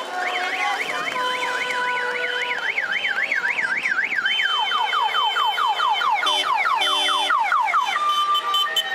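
Electronic siren-type horn on a vehicle in a passing car caravan. It sounds a fast up-and-down warble for about four seconds, then switches to a run of quick falling sweeps, over steady horn tones.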